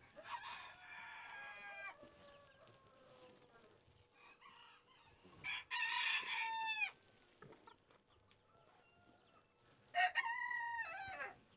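Rooster crows, three of them about four to five seconds apart, each a long held call that bends down at its end.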